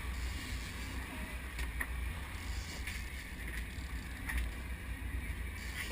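Steady low rumble and hiss of a fishing boat at sea, with a few faint clicks.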